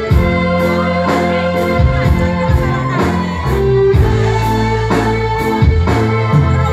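Live band music through a PA system: a keyboard and bass line with a plucked guitar melody over a steady percussion beat of about two strikes a second.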